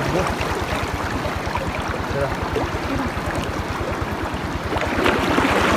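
Shallow stream water splashing and moving around someone wading, over a rapid, even low pulsing; the splashing grows louder near the end.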